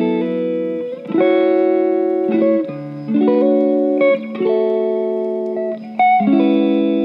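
Background music: soft sustained chords on a guitar-like plucked string instrument, changing about every one to two seconds.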